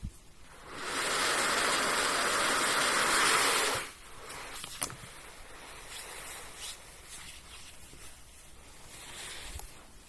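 A loud, steady rush of air lasting about three seconds, starting just under a second in and stopping abruptly. It is followed by a sharp click and, near the end, a shorter and softer hiss.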